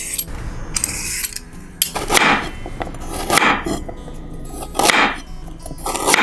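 A peeler scraping down a raw carrot, then a chef's knife slicing the carrot into rounds on a wooden cutting board: four crunchy cuts, each a bit more than a second apart.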